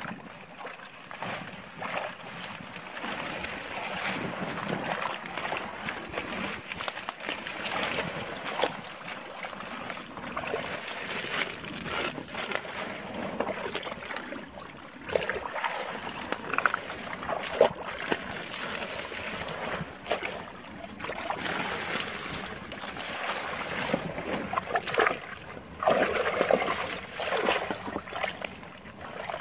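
Hands digging and groping in wet mud and shallow water: irregular squelching, small splashes and trickling, with crackles of leaves brushed aside.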